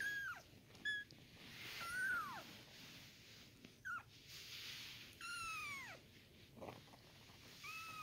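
20-day-old RagaMuffin kitten mewing: about six high mews that slide downward in pitch, some short and some drawn out, with soft rustling from handling between them.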